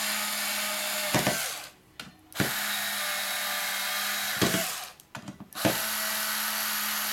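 Electric screwdriver running in three spells of about two seconds each, with short pauses between, as it drives screws fully home into the base of a Bose SoundDock Portable.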